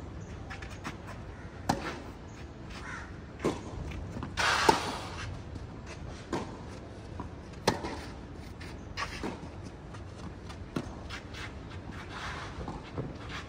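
Tennis rally: sharp racket-on-ball hits and bounces, spaced about one and a half to two seconds apart. A louder harsh, rasping sound comes about four and a half seconds in.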